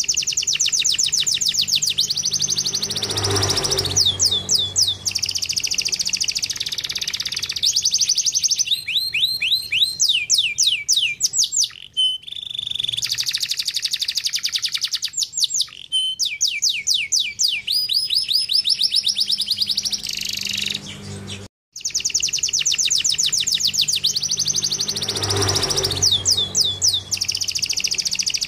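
Domestic canary singing a long, high-pitched song of rapid trills and rolling repeated phrases. It breaks off briefly about 21 seconds in, then starts again, with a faint low hum underneath.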